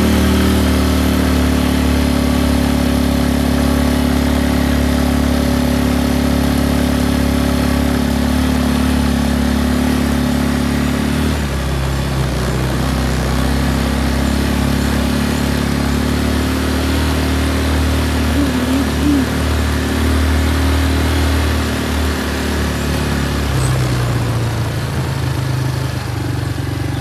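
Quad bike (ATV) engine running steadily while the quad is ridden at low speed. Its note drops about halfway through and shifts again near the end.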